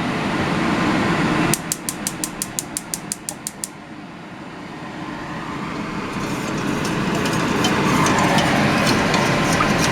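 Stove burner being switched on: a rapid run of about a dozen ignition clicks over two seconds, then a steady noise that slowly grows louder as the burner heats the pot.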